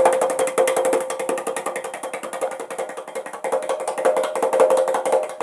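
A 2-inch paint brush being beaten rapidly against a wooden easel leg to knock out the odorless mineral spirits. It makes a fast, even rattle of slaps that stops abruptly.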